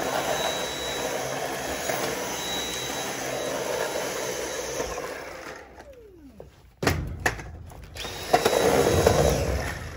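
Dyson V8 cordless stick vacuum running steadily with a high whine, then switched off about halfway through, its motor winding down in a falling whine. A few knocks follow, and the vacuum runs again briefly near the end.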